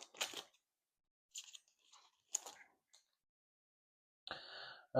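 Faint crinkling and rustling of a foil trading-card pack wrapper and cards being handled, in a few short scattered bursts.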